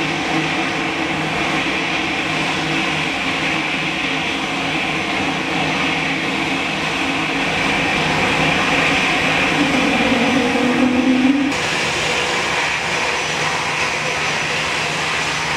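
Airbus A220-300's Pratt & Whitney PW1524G geared turbofans running at taxi idle as the jet rolls past: a steady whine over a hum. A low drone swells briefly around ten seconds in, and about eleven seconds in the sound changes abruptly and becomes brighter.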